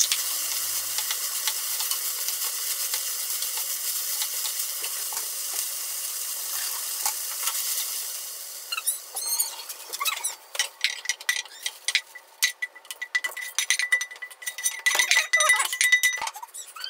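Minced filling sizzling in a frying pan while a wooden spatula stirs it. About eight seconds in the sizzle dies away and the spatula scrapes and knocks against the pan in quick strokes as the filling is scraped out into a bowl.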